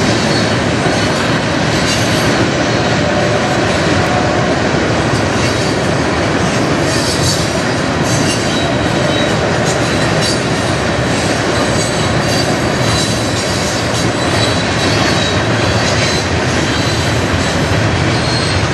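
Freight train's covered hopper cars rolling past: a steady rumble and clatter of steel wheels on the rails, with a faint, steady high wheel squeal over it.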